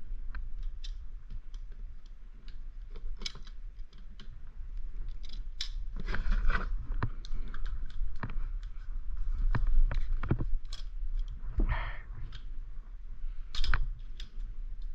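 Seat post clamp being fitted by hand: scattered metallic clicks, taps and short scrapes as the clamp and seat post are handled, busiest in the second half.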